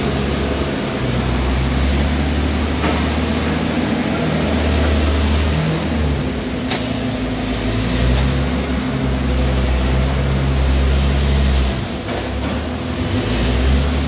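An engine running steadily, its low hum shifting in pitch every second or two, with one sharp click about seven seconds in.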